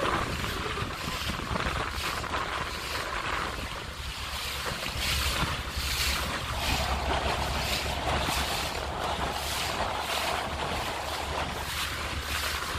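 Water splashing against the hull of a small boat moving across choppy river water, in repeated surges, with wind buffeting the microphone.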